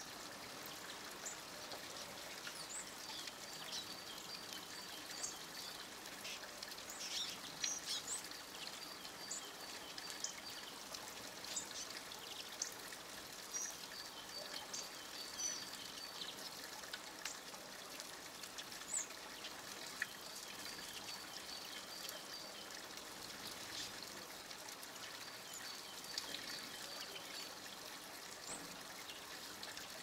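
A flock of small finches calling and twittering, with many short high chirps and a repeated short note scattered throughout, over a steady background hiss.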